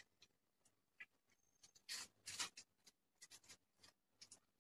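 Faint eating sounds: fingers working rice on metal plates and chewing, a scatter of soft clicks and rustles, loudest about two seconds in.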